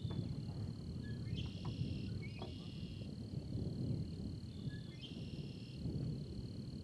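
Insects calling outdoors: a steady high trill with two bouts of raspy, pulsing calls, over a low, steady rumble.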